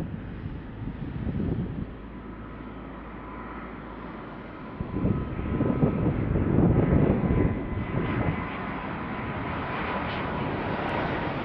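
Airbus A330-200 with Rolls-Royce Trent 700 engines on final approach at low thrust: a steady engine whine, with a low rumble that swells about five seconds in as the jet comes closer. A different rumble from the previous shot cuts off about two seconds in.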